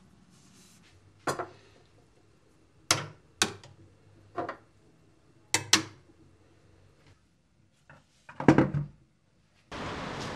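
Steel kitchen knives clacking one by one against a wall-mounted magnetic knife strip: a string of sharp metal clacks a second or so apart, the loudest near the end. In the last second a steady hiss of rain starts abruptly.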